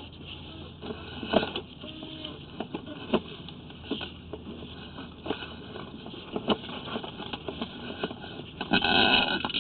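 Sewer inspection camera's push rod being pulled back by hand toward the cleanout: irregular clicks, knocks and scrapes, with a louder burst of rapid clatter near the end.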